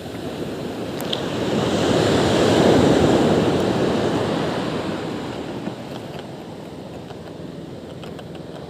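Sea surf: a wave washes up the beach, swelling about a second in, peaking near three seconds and fading by about six seconds, then a lower steady wash of surf.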